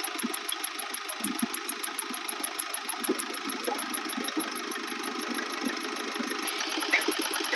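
Mahindra Scorpio mHawk four-cylinder common-rail diesel engine running with a fast, even 'tk tk' ticking knock. The noise persists after ECU flashing and injector coding.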